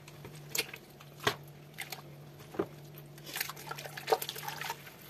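Wet squelching and dripping as rubber-gloved hands squeeze and stretch hot, stretchy kashkaval cheese curd over a pot of hot water: irregular squishes and drips, busiest near the end, over a low steady hum.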